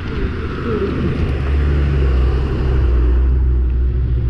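Steady low rumble of wind buffeting the microphone of an action camera on a mountain bike descending a road at about 30 km/h, growing stronger about a second and a half in.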